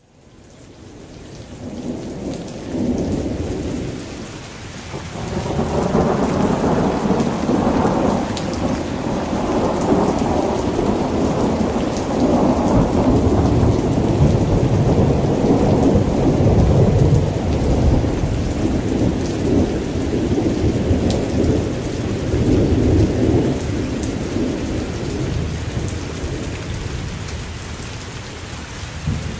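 Steady rain with a long, rolling peal of thunder that builds over the first few seconds, rumbles loudest around the middle and slowly eases off towards the end.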